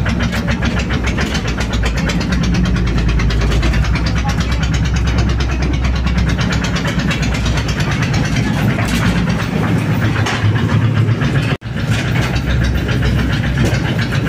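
Small engine of a motorized rail lorry (molek) running steadily under way, with rapid even engine pulses and a strong low rumble. The sound breaks off for an instant about three quarters of the way through.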